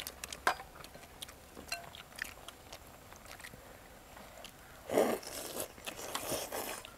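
People eating: bites into crisp toasted baguette and chewing, with scattered small clicks, and a louder stretch of crunching about five seconds in.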